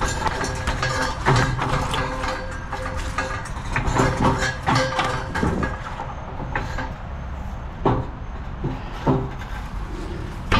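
Irregular knocks, bangs and scraping of a metal propane water heater being manhandled and loaded, over the steady low rumble of a running vehicle engine.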